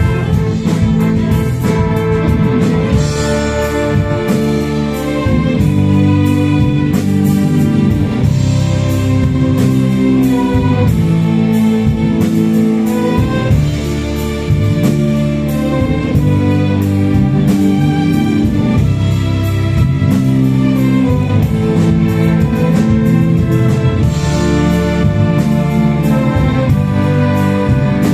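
Orchestra with violins and cellos playing a continuous piece of sustained chords. The sound dips briefly about fourteen seconds in, then picks up again.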